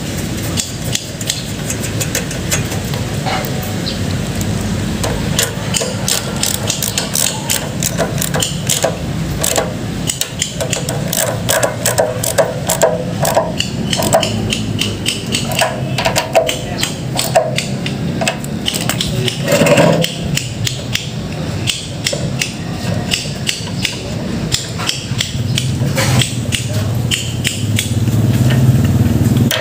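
Socket wrench and hand tools clicking and knocking against metal in quick irregular runs as the carburetor is fastened onto a small 5 hp gasoline engine, over a steady low hum.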